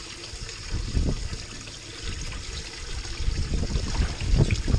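Steady trickle of water in a boat livewell, with water sloshing and splashing about a second in and again near the end as hands reach in and grab a lively smallmouth bass.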